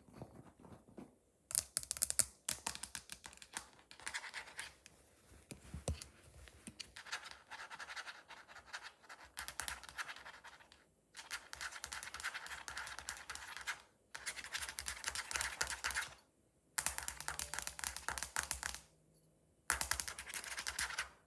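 A cat scratching and pawing with its claws at a hard floor and a small toy, a rapid scratchy clicking that comes in repeated bursts of two to three seconds with short pauses between them.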